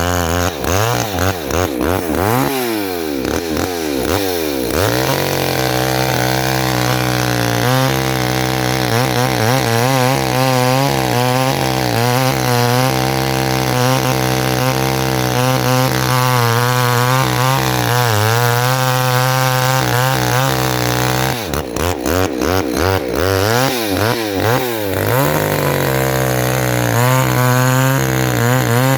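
Two-stroke chainsaw running at high revs while cutting into a tree. Its pitch wavers and dips during the first few seconds and again about two-thirds of the way through, then holds steady under load.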